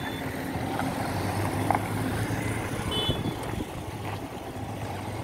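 Steady low hum of a running motor-vehicle engine over a noisy background, with a brief high tone about three seconds in.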